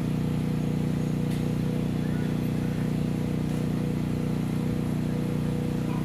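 A steady low machine hum with a thin, constant tone above it, unchanging throughout.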